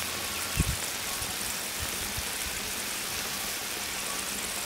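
Hairtail pieces in braising sauce simmering in a wok: a steady bubbling hiss. A single low thump about half a second in.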